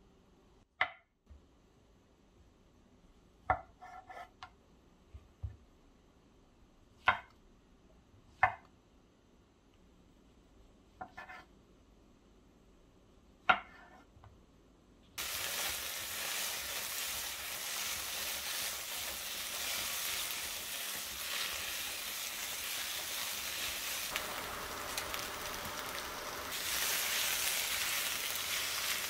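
A few separate light knocks and clinks of kitchen utensils and cookware, then about halfway through, food in a hot pan starts sizzling suddenly and keeps frying steadily, growing louder near the end.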